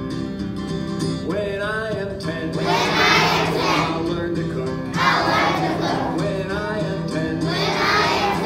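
A class of young children singing a song together over backing music. The voices come in about a second in and go in phrases with short breaks.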